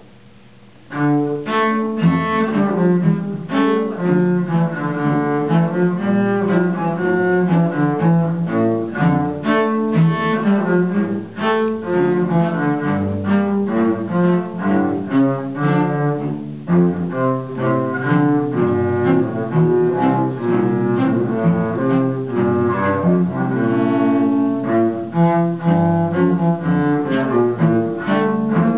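Two cellos playing a duet with the bow, a fast-moving passage of many short notes. The playing starts about a second in.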